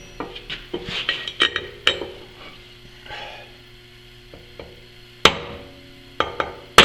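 Hammer blows on a steel transfer punch and clinking steel tools and parts, each strike sharp with a short metallic ring. Lighter clinks come in the first two seconds and a brief scrape about three seconds in; the loudest two strikes fall near the end.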